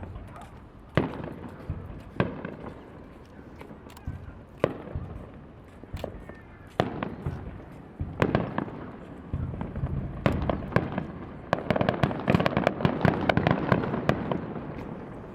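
Aerial fireworks shells bursting: single sharp bangs every second or two, then a dense rapid barrage of many bursts near the end.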